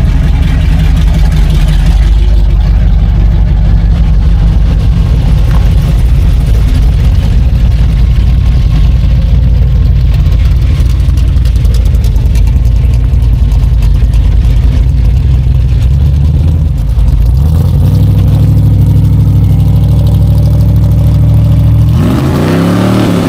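Classic American V8 car engine running with a loud, steady low rumble. Around three-quarters of the way through it rises in pitch, and near the end it revs up in quick rising sweeps.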